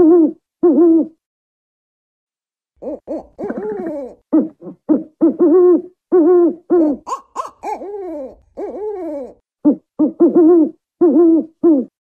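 African wood-owl hooting: rapid runs of short hoots, each bending up and down in pitch, after a pause of about a second and a half near the start.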